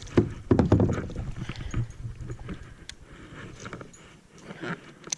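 Knocks and thumps against a kayak, with scattered short clicks and rustling, from the angler shifting about and handling gear; loudest in the first second, then fading.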